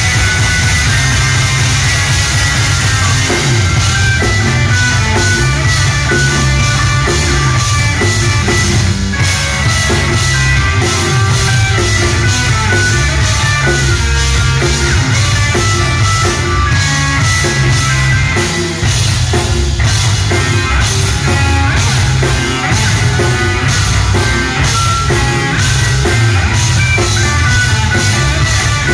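Live rock band playing loud and steady: two electric guitars over a drum kit keeping a regular beat.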